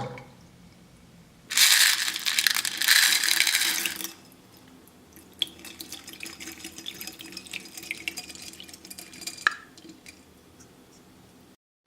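Water poured out in a hissing rush for about two and a half seconds, followed by several seconds of quieter trickling and small clicks, like beads moving in water.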